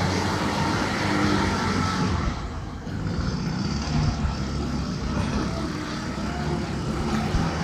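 A car engine running steadily. The sound gets a little duller about two and a half seconds in.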